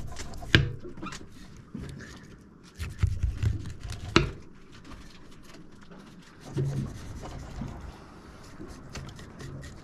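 Knife slicing and scraping through a small tuna as its top shoulder is filleted off on a boat's bait board. Two sharp knocks stand out, about half a second in and about four seconds in.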